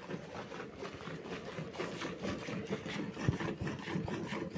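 Milking: streams of milk squirting into a pail with a steady rhythm of short hissing squirts, a few a second, as the pail fills. A single dull knock a little past three seconds.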